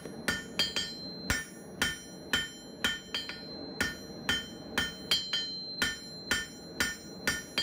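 Blacksmith's hammer striking hot square steel stock on an anvil in a steady rhythm of about three blows a second, each blow ringing, while drawing out a one-sided taper on the bar's end.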